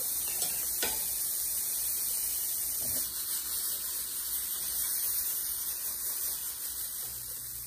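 Oat and banana pancake batter sizzling with a steady hiss as it is poured into a hot buttered nonstick pan, over a low hum, with a few faint clicks near the start.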